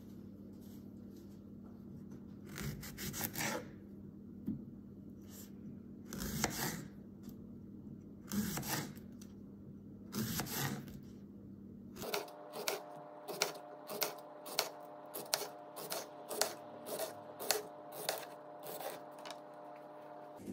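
Kitchen knife slicing through a large garden cucumber on a bamboo cutting board, each cut ending on the wood. First come a few slow cuts a couple of seconds apart. From about halfway, about fourteen quicker cuts follow at an even pace over a low steady hum.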